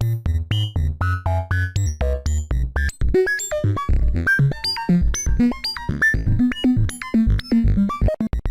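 Roland System-100 software synthesizer playing a fast sequenced pattern: a run of short notes over a low bass line, many notes ending in quick rising pitch sweeps. From about three seconds in, the notes jump more widely in pitch.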